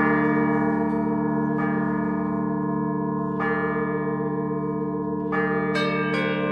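Russian Orthodox church bells rung from a bell tower: the heavy bells keep up a sustained hum while higher bells are struck about every two seconds, then in quicker succession near the end.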